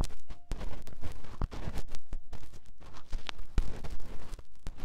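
Close-up ASMR ear-massage sounds on the microphone: quick, irregular scratching and rubbing broken by sharp taps and knocks.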